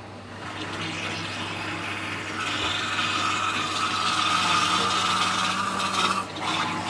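Small electric grinder running with a steady motor hum while soaked nuts are fed into it and ground wet into a paste. The grinding grows louder with a steady whine about two and a half seconds in, and eases just after six seconds.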